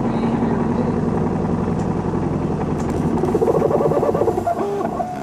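3D printer running: a steady motor hum with fast fluttering stepper-motor noise that rises about three seconds in.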